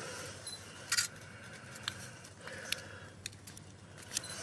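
Wooden spatula spreading and scraping epoxy metal repair putty over a patched pipe: a few light, sharp scrapes and clicks about a second apart.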